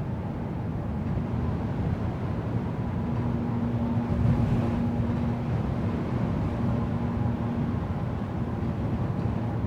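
Wind and electrical hum at a power-line post, mixing like an aeolian harp: a steady low wind noise with a faint high hum, joined about three seconds in by a clear steady hum tone that drops out near the end.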